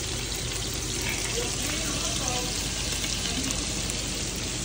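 Ćevapi (small minced-meat sausages) sizzling steadily as they fry in oil in a pan. The sizzle starts abruptly and stays even throughout.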